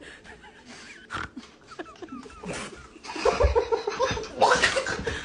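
Soft, broken snickering laughter and vocal sounds, growing louder about halfway through.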